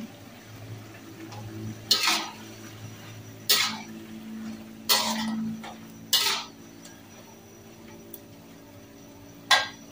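Metal spatula scraping and clanking against a steel wok as vegetables are stir-fried, in five separate strokes a second or more apart, the middle one the longest. A steady low hum runs underneath.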